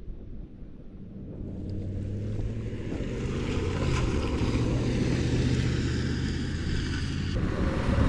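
Dirt bike engine running at a fairly steady pitch. It comes in about a second and a half in and gets louder.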